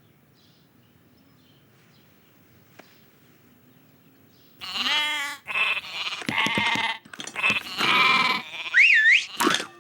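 Sheep bleating: after a faint quiet hum, a run of loud, wavering bleats starts about halfway through. Near the end there is a short squeaky glide that rises and falls.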